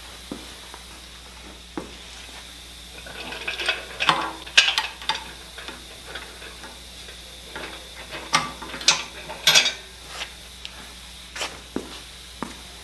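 Scattered metal clinks and clanks from handling an engine hoist's hook and a magnetic lifter, coming in two busier flurries, one a few seconds in and one just past the middle.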